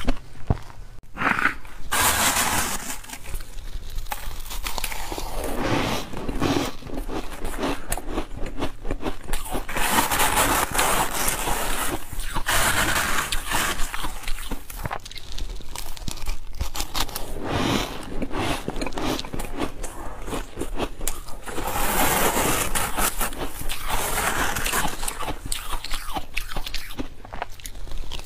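Close-miked crunching and chewing of freezer frost ice, in repeated bouts of crisp crackling bites every few seconds, with quieter gaps between them as a metal spoon scoops more frost.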